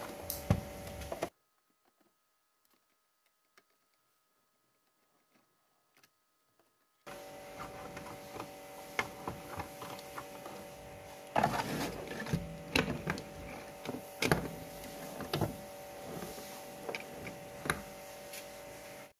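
Clicks, knocks and clatter of a screwdriver and of the plastic and metal parts of a Toshiba RT-SX26 radio-cassette player being taken apart, over a steady hum. The sound drops out for several seconds soon after the start, and the knocks come louder and thicker in the second half.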